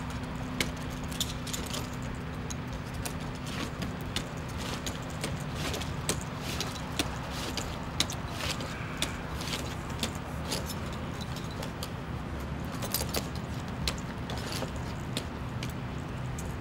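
A lineman's climbing gear on a wooden utility pole: pole-climbing gaffs bite into the wood and the metal hardware on his body belt jingles, giving sharp clicks about once a second. A steady low engine hum runs underneath.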